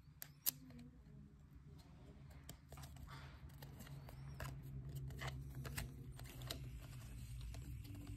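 Glossy Topps Chrome baseball cards handled and flipped through by hand: faint scattered clicks and slides of card stock against card stock, with one sharper click about half a second in.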